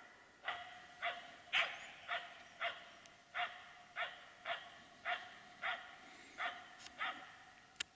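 Finnish Spitz barking steadily and rhythmically, about twelve short sharp barks at roughly two a second. This is the treeing bark of a bird dog marking game up in a tree.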